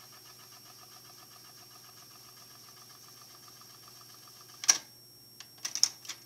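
Technics RS-TR232 cassette deck rewinding a tape in its record/play deck: a faint, steady whir of the transport motor and spooling tape. About two-thirds of the way through, a sharp mechanical clunk as the transport stops, followed near the end by a few lighter clicks of its transport keys.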